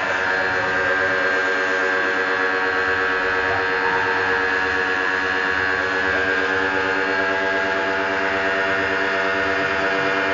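Lotus pressure washer running steadily: a constant motor hum under the hiss of the water spray.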